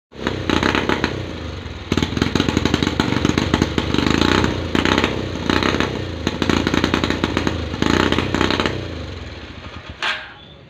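Old trail motorcycle's single-cylinder engine running without a carburettor on LPG fed straight into the intake through a hand-held pipe, revved up and down about six times, then dying away near the end.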